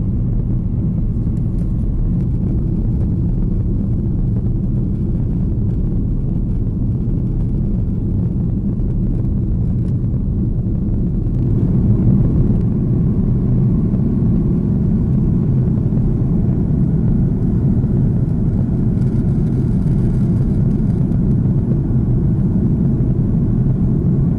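Jet airliner cabin noise heard from a window seat in flight: a steady low rumble of engines and rushing air. It grows slightly louder about halfway through.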